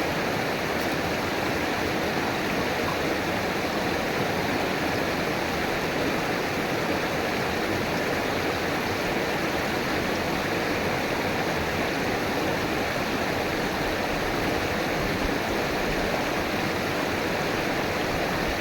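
River water flowing and rushing over rocks, a steady, even rush with no breaks.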